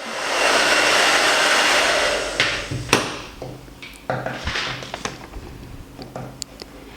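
Hot-air blower running steadily for about two and a half seconds, warming a glued repair patch so the glue melts and bonds, then cut off with a sharp click near three seconds. A few light knocks and taps follow.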